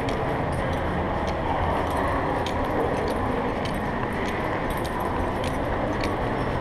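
Metal chain leash clinking and jingling in light, irregular chinks as a walking dog pulls it along, over a steady background hubbub.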